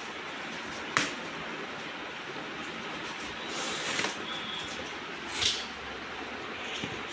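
Cardboard box flaps being pulled open and handled, with a sharp snap about a second in and short scrapes around four seconds and again at about five and a half seconds, over a steady background hiss.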